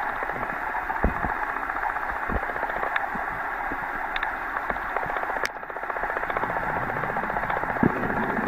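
Steady underwater hiss, as heard by a camera filming beneath the surface, full of dense fine crackling and a few sharp clicks. The hiss dips briefly a little past halfway.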